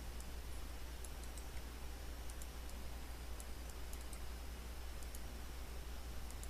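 Faint computer mouse clicks, a dozen or so scattered sharp ticks, over a steady low hum and hiss.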